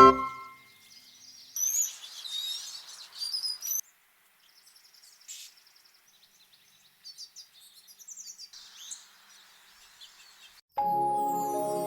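Small songbirds chirping and calling in short bursts of high, quick notes, loudest in the first few seconds and fainter later. Background music comes back in near the end.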